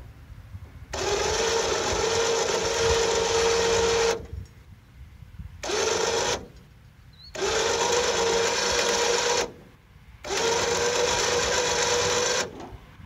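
Electric winch motor running in four bursts of one to three seconds with short pauses between, a steady whine under load as it pulls the grain elevator upright.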